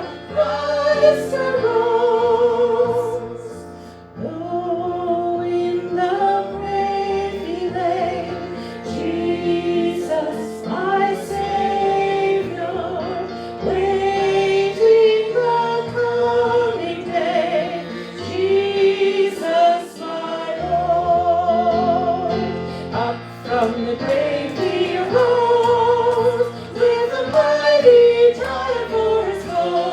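Hymn singing led by a woman's voice with wide vibrato, joined by other voices, over instrumental accompaniment with sustained bass notes.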